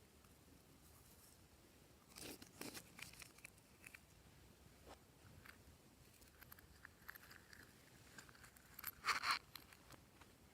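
Slime being worked by hand, with quiet sticky crackles: a cluster about two seconds in, scattered ones after, and a louder burst near the end.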